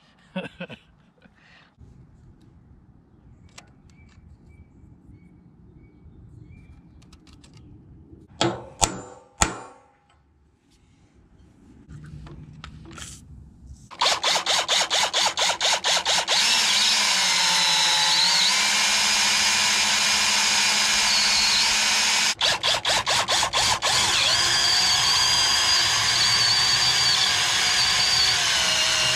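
Electric drill boring through thick steel (a sawmill rail and the steel I-beam under it), the motor whining under load as the bit cuts. It starts abruptly about halfway in, cuts in and out briefly about two-thirds through, then runs on steadily; before it, a few sharp knocks over quiet background.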